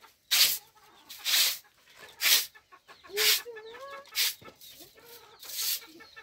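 Chickens clucking with short, wavering calls, over a louder rhythmic noisy stroke that repeats about once a second.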